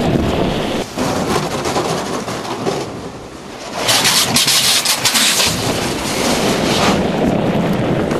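Loud rushing wind and rumble of a speeding bobsled, with a brighter hissing rush swelling about four seconds in.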